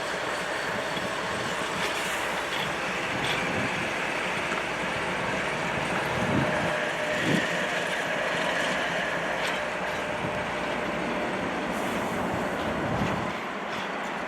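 A train rolling past with a steady rushing noise and a few scattered thumps from the wheels. The sound drops a little near the end.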